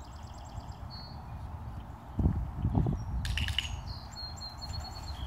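Small birds chirping in short repeated trills, one run at the start and another about four seconds in. About two seconds in come a few loud low thumps, followed by a quick run of clicks.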